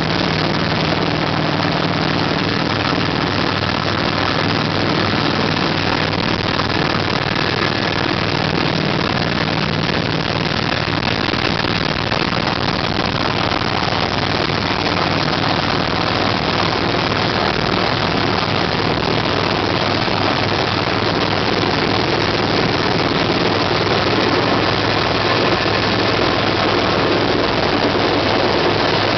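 An engine running steadily, with a continuous rushing noise over a low hum.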